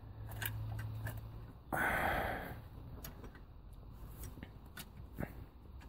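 A short, heavy breath out about two seconds in, with faint scattered clicks and taps of metal parts being handled.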